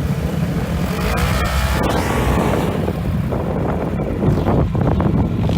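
Off-road vehicle engine running.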